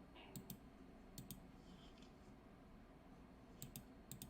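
Faint computer mouse clicking: four quick pairs of clicks spread across a near-silent room.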